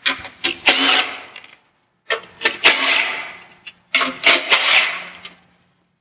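Power drill on a slow setting spinning out 10 mm bolts, in three short runs of about a second and a half each.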